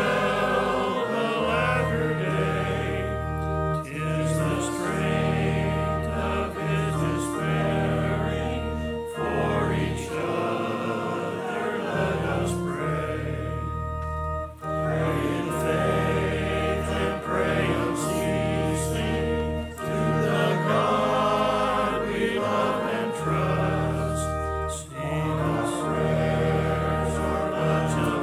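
Congregation singing a hymn together to organ accompaniment, with long-held low organ notes under the voices and brief breaths between lines.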